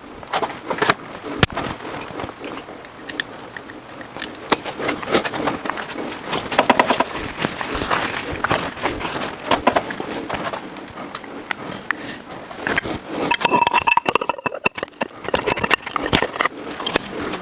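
Irregular metallic clinks, clicks and taps of hand tools and engine parts as a piston is fitted into a small-block Ford V8 block. Near the end there is a brief metallic ring.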